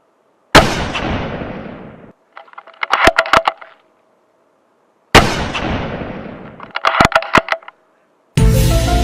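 Two loud gunshots, each with a long fading echo and followed about half a second later by a quick run of sharp clicks like a bolt-action rifle being cycled. Music starts near the end.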